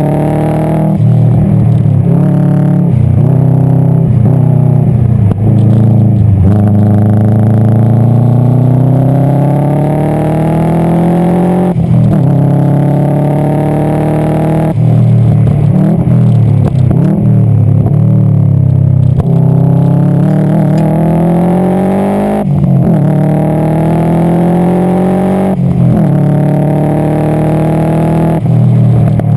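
Subaru Impreza STI GC8's turbocharged flat-four engine pulling hard through the gears at racing speed, its pitch rising again and again and breaking at each gear change or lift for a corner. The car is running with an exhaust leak that the owner blames for a loss of power.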